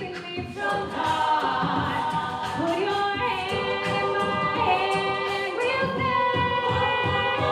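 A cappella vocal group singing sustained chords in harmony.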